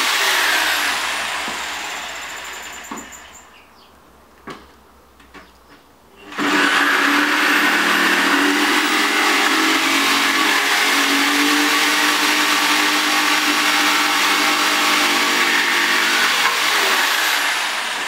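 Electric jigsaw cutting a wooden plank: the motor dies away over the first few seconds, a few knocks follow in a short lull, then the saw starts again suddenly about six seconds in and runs steadily through the board before tailing off near the end.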